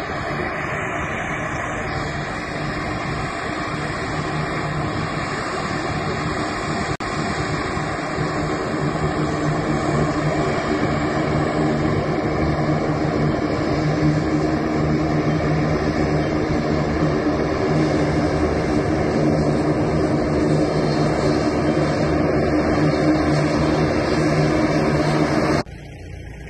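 Twin-engine turboprop airplane taxiing with its propellers turning, a steady engine drone with a deep hum that grows louder over the first ten seconds or so and then holds. It cuts off suddenly near the end.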